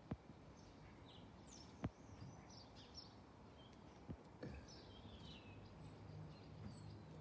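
Faint outdoor quiet with small birds chirping and twittering in short high calls and quick falling notes, broken by a few soft knocks, the sharpest about two seconds in.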